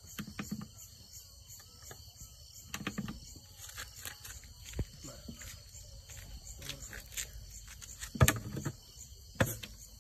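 Crickets chirping in a steady, evenly pulsing chorus, with a few sharp knocks and scrapes of handling; the loudest knock comes about eight seconds in.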